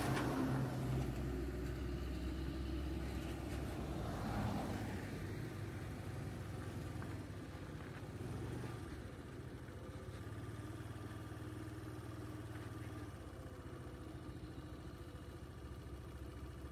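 A bus passes close by at the start, and another vehicle passes about four seconds in. After that a vehicle engine idles steadily with a low hum.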